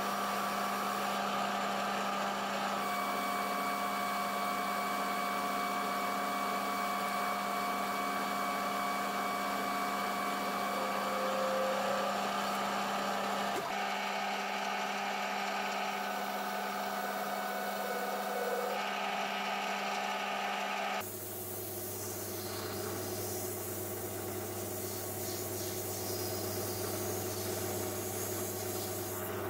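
Metal lathe running steadily while turning a metal roller with a cutting tool. About two-thirds of the way in the sound changes to a low hum with a rubbing hiss as abrasive paper is pressed against the spinning roller to finish it.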